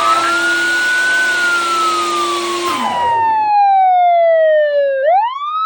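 A table saw running loudly under a wailing siren, likely an added police-siren effect. The siren rises, then falls slowly. The saw noise cuts off suddenly about two-thirds of the way through, and the siren wail carries on alone, dipping and then rising again near the end.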